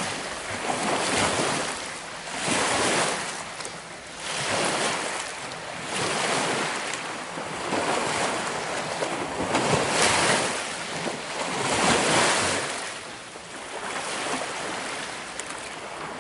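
Small waves breaking and washing onto a stony shore, the hiss of the water swelling and fading in surges about every two seconds.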